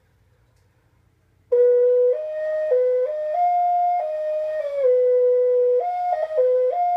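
Mexican clay turtle ocarina played, starting about a second and a half in: a clear, pure whistling tone stepping up and down between a few notes in a simple tune, with quicker note changes near the end.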